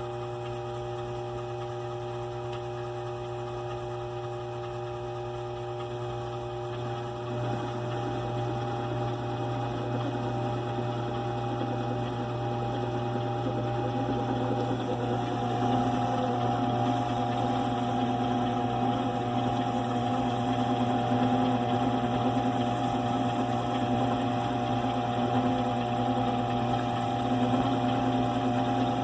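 Antique 1920s lathe driven by a DC treadmill motor, running with a steady motor hum and whine while turning a part. A rougher cutting noise joins about a quarter of the way in and gets louder about halfway through.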